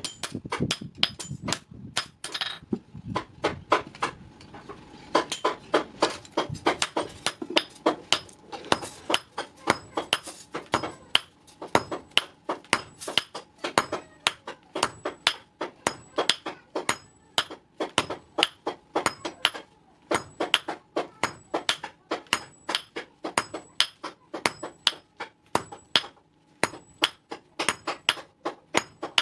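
Hand hammer forging a red-hot iron scissor blade on a steel block anvil: a steady run of ringing blows, about two to three a second, with a brief lull about three seconds in.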